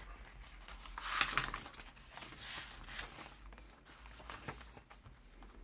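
Paper pages of a handmade junk journal rustling as they are handled and turned, with a louder rustle about a second in and a few light clicks and taps.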